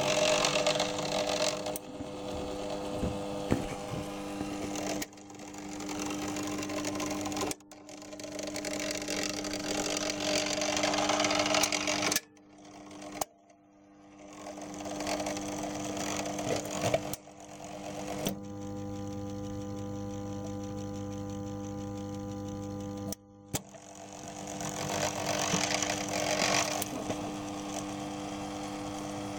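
NSM GP minibox jukebox's record-changing mechanism running: its electric motor whirs in repeated cycles of several seconds, each building up and then stopping abruptly with a click. Near the middle there is a steadier hum for a few seconds.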